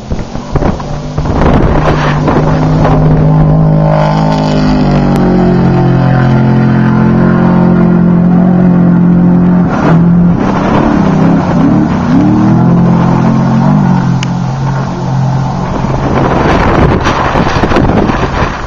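Trophy truck racing engine at full throttle, its pitch climbing and then holding high and steady, wavering up and down in the middle, and giving way to a noisier rush near the end.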